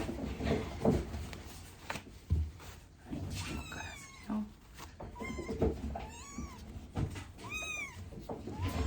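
Kitten mewing: about four high-pitched meows in the second half, each rising then falling in pitch. A few soft knocks come in the first couple of seconds.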